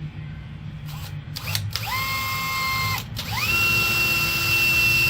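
Power drill boring 3 mm pilot holes into steel frame rivets. A few clicks, then the motor spins up to a steady whine and stops about a second later. It spins up again to a higher, steady whine that carries on.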